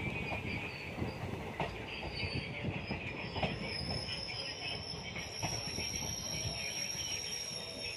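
Passenger coach of an express train running over the rails, heard from its open doorway: irregular wheel clicks over rail joints under a steady rumble. A high steady wheel squeal comes in about two seconds in and holds.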